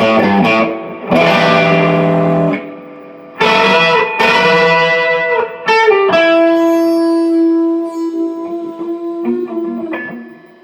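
Electric guitar played through its Lace Hemi Nitro bridge humbucker in full humbucker mode: several chords struck and left ringing, then a single note held about six seconds in and fading out near the end.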